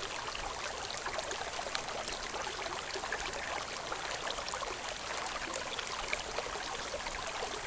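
Running water trickling steadily, with many small splashes.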